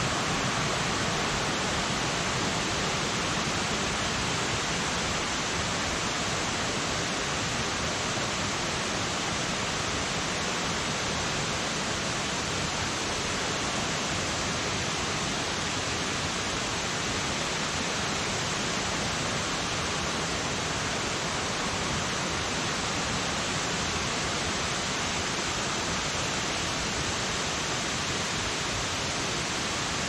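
Steady rush of the Kuang Si Falls cascades spilling over tiered terraces of pools, an even, unbroken hiss of falling water.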